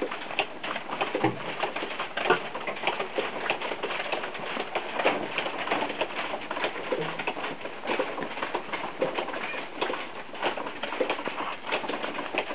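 Water dripping from a leaking ceiling, many irregular drips and splashes a second.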